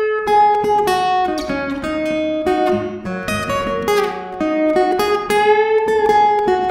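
Acoustic blues guitar playing an instrumental phrase between sung lines: a run of single plucked notes, about two to three a second, each ringing on into the next.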